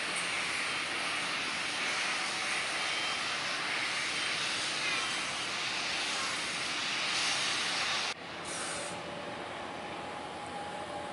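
Steady rushing outdoor noise with no distinct tone. It cuts off abruptly about eight seconds in, giving way to a quieter background with a faint hum.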